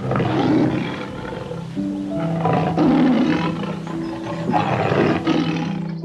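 Male African lion roaring, three loud, rough roars in a row.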